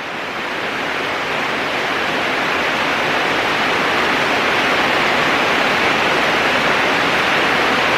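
Heavy rain pouring down in a steady hiss that swells gradually louder over the first few seconds, then holds.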